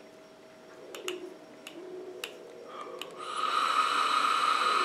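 A few light clicks, then, about three seconds in, a long steady hiss of air drawn through a Freemax Starre Pure sub-ohm tank with a ceramic coil as it is inhaled from.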